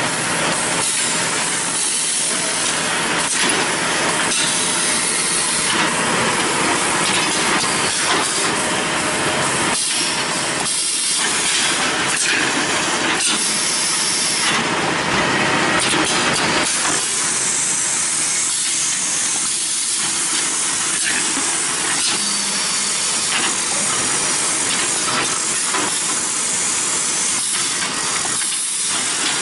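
Automatic parallel paper tube making machine running: a steady, loud hissing machine noise with occasional short knocks.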